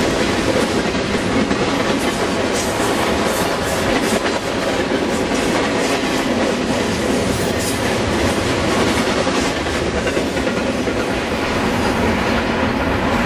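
Canadian Pacific double-stack container train roaring past at about 60 mph: a loud, steady rush of steel wheels on rail, with frequent clicks from the wheels.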